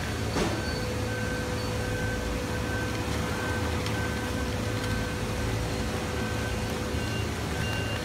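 Forklift and baler machinery running with a low steady drone under a repeating warning beeper, about two beeps a second, as the forklift tips a bin of reject plastic into the baler hopper. There is a brief clatter of falling plastic about half a second in.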